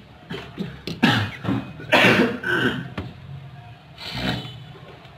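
A person coughing a few times, in harsh bursts about a second apart.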